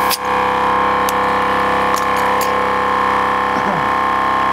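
Milwaukee M18 Fuel 2-gallon cordless air compressor running with a steady, even hum. A short click sounds just after the start as the tire chuck is pulled off the valve.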